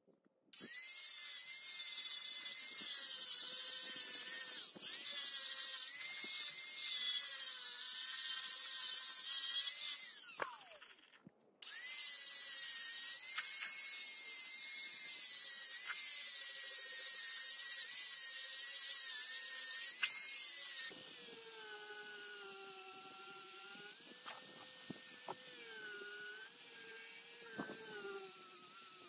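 Electric angle grinder with a fine-grit sanding disc running against a steel hammer head: a high hiss over a steady motor whine. It winds down and stops about ten seconds in, starts again a moment later, and from about twenty-one seconds in runs quieter, buffing the steel with a felt polishing pad.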